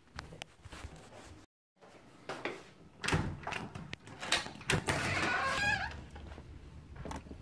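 A front door being opened: knocks and clicks as the lever handle is gripped and turned, then about a second of louder noise as the door swings open, about five seconds in.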